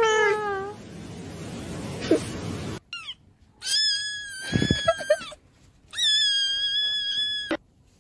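A falling, meow-like call at the very start, then after a short falling squeak two long, high, steady cat-like wails, each about a second and a half long, with a short break between them.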